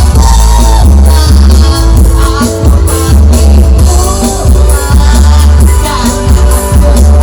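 Loud music with a heavy, pulsing bass and a wavering melody line.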